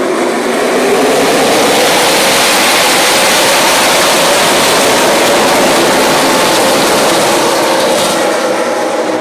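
The whole field of NASCAR Sprint Cup stock cars racing past in a tight pack on the opening lap, their V8 engines at full throttle: a loud, dense engine din that builds about a second in and eases off near the end as the pack moves away.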